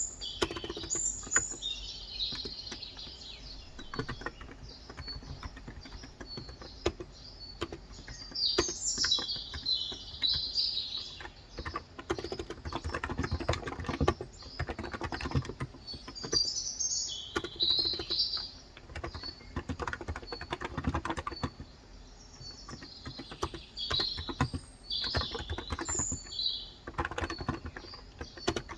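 Typing on a Cox Endeavour electrostatic capacitive (Topre-style) keyboard with 35 g switches, keystrokes coming in quick bursts with short pauses between them. Birds chirp intermittently in the background.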